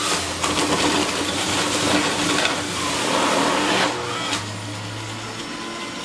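Breville juicer running on its low setting, its spinning blade shredding a vegetable pushed down the chute with the plunger: a loud grinding noise over a steady motor hum for about four seconds. Then the load comes off, there is a short click, and the motor runs on more quietly.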